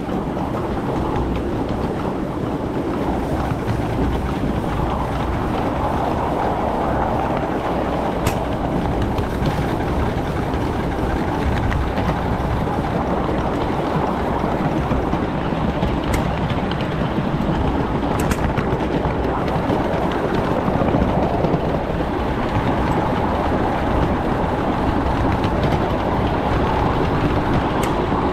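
Small-scale ride-on 2-6-0 steam locomotive working upgrade, heard close beside the boiler: a steady running noise of the engine and wheels on the track, with a few faint clicks.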